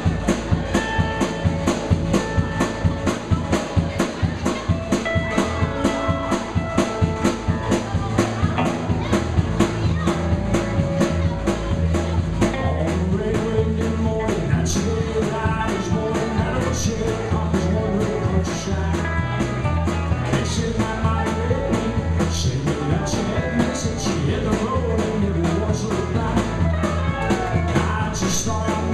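Live country band playing an up-tempo song: a drum kit keeps a fast, steady beat under electric and acoustic guitars, bass and pedal steel guitar, with a man singing lead.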